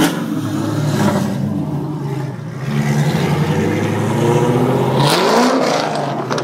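Pontiac GTO's LS2 V8 running loud through a custom exhaust, pulling under throttle. Its pitch climbs sharply about five seconds in as it revs up.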